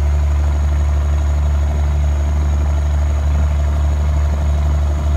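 M35A2 deuce-and-a-half military truck's turbocharged multifuel inline-six engine running in a steady low drone as the truck drives through deep floodwater, heard from inside the cab.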